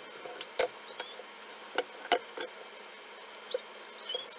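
Steel scissor blade prying the lid off a metal can of Minwax wood stain, giving a run of irregular sharp clicks and taps of metal on the tin rim. Short, high squeaky chirps come and go throughout.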